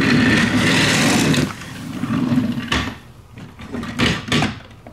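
Small motorized toy train running on plastic track, with a rattling buzz from its motor and gears. Later come a few sharp plastic knocks.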